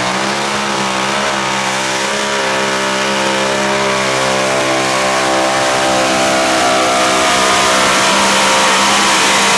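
Mini modified pulling tractor's engine at full throttle on a pull, dragging the weight-transfer sled. It holds high revs steadily, with the pitch edging slightly upward.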